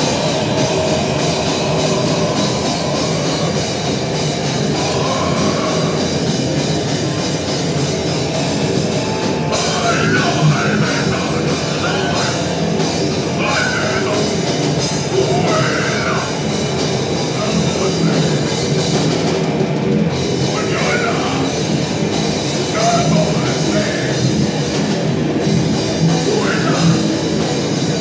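Heavy metal band playing live: distorted electric guitar, bass and drum kit at a steady, full level, with harsh shouted vocals over the top from about ten seconds in.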